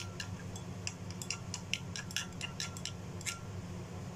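A spoon stirring milk in a glass bowl, clinking irregularly against the glass.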